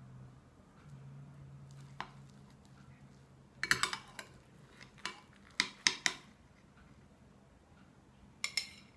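A metal utensil clinking against a glass baking dish and a plate as cake slices are lifted out. There is one clink about two seconds in, a quick cluster near four seconds, several more around five to six seconds, and a last pair near the end.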